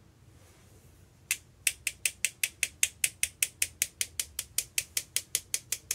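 Quick, even tapping of a thin paintbrush against a blending brush's handle, about five taps a second, starting about a second in, to shake water droplets off the brush onto the card.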